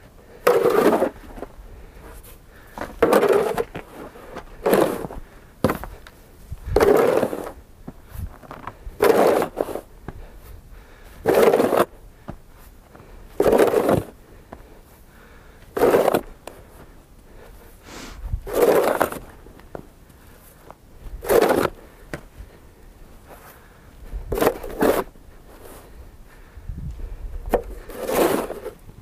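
Snow shovel blade scraping along the driveway as it pushes loads of snow, in about a dozen regular strokes, one every two to three seconds.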